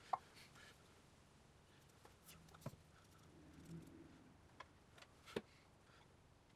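Near silence broken by a few short knocks and taps as a glue bottle and a small wooden blank are set down and handled on a wooden workbench. The sharpest tap comes right at the start, with others about two and a half and five seconds in.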